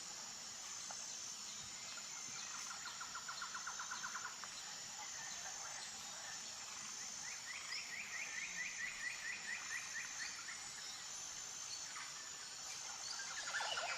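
A falcon calling in two quick runs of short repeated notes, about eight a second, the second run higher-pitched: the rapid chattering call of a falcon. Faint, with a steady high hiss underneath.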